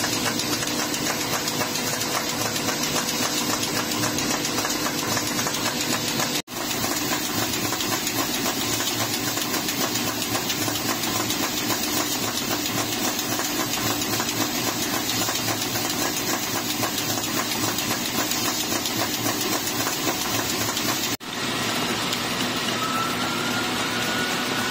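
Rotary compression molding machine for 38 mm plastic bottle caps running: a steady mechanical hum with a fast, even clatter.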